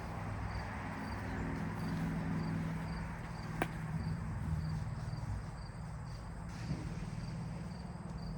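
A cricket chirping in an even rhythm, about two to three chirps a second, over a steady low outdoor hum. A single sharp crack comes about three and a half seconds in, and a fainter knock follows near seven seconds.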